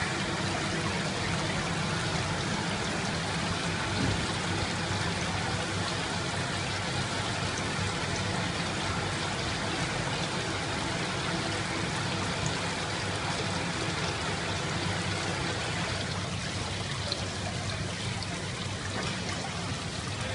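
Steady water pouring and bubbling in a live seafood tank: the inlet pipe splashing onto the surface and the air stone's stream of bubbles.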